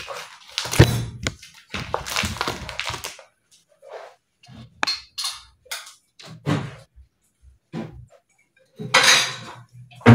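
Stiff plastic vacuum packaging crinkling and rustling as it is cut open with scissors. Then scattered knocks and the clatter of dishes as a plate is taken from the dish rack, loudest near the end.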